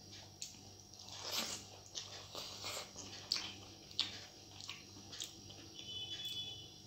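Close-up eating sounds of a person chewing rice and vegetables eaten by hand: irregular wet smacks and mouth clicks.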